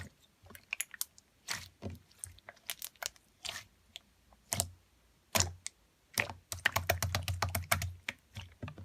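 Clear slime being pressed and squeezed by hand, making sticky clicks and pops, with a quick run of them from about six seconds in.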